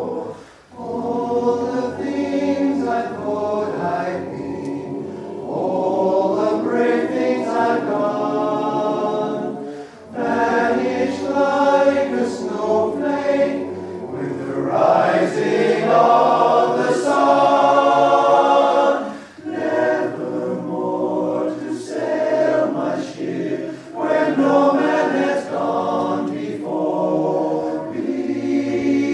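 Men's barbershop chorus singing a cappella in close four-part harmony, holding sustained chords, with short breaks between phrases near the start, about a third of the way in and about two thirds in.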